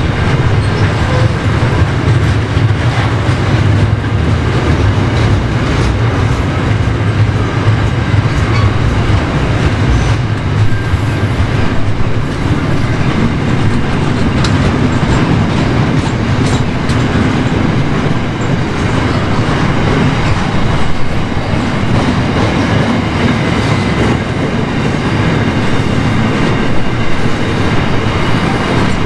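Freight train rolling past with a steady rumble of wheels on the rails and a few clicks over the rail joints.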